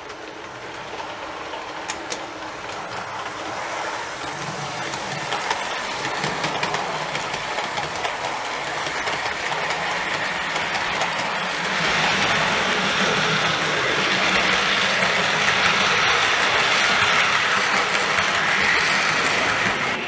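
OO gauge model train running along the track, its wheels clicking over the rail joints, growing steadily louder as it comes closer and loudest over the second half.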